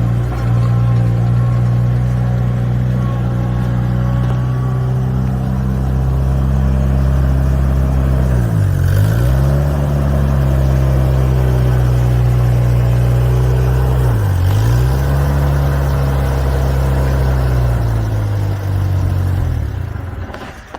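Gas engine of a Mustang 345 skid steer running steadily at speed. Twice, about eight and a half and fourteen seconds in, its pitch dips sharply and comes straight back up; near the end it slows and the sound falls away.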